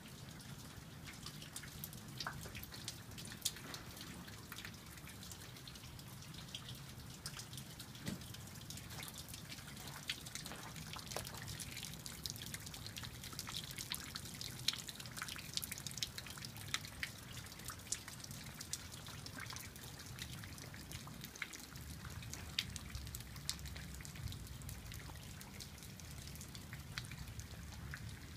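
Rain dripping: scattered raindrops tap irregularly throughout, with a few louder single drips, over a low steady rumble.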